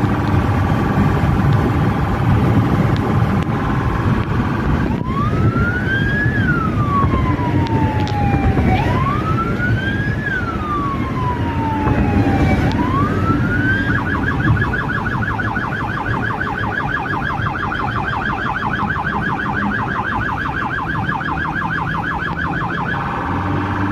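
Police siren heard from inside the chasing vehicle over engine and road noise. It starts on a steady tone, changes about five seconds in to three slow wails that rise quickly and fall slowly, switches to a fast warbling yelp about halfway through, and goes back to the steady tone near the end.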